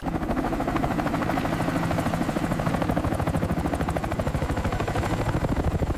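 Military helicopter flying low and close overhead: a rapid, even rotor chop over a steady low rumble, starting suddenly.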